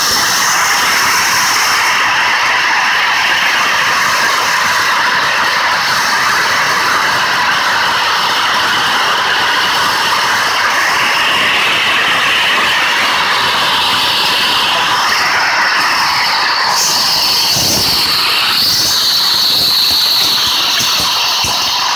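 A loud, steady rushing noise with no clear pitch, shifting slightly in character about 17 seconds in.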